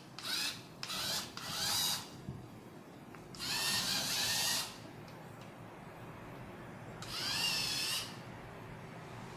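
LEGO Mindstorms robot motors whining as they drive its gear trains in short runs: three quick bursts, then two runs of about a second each. Each run starts with a rising whine over a gear rattle.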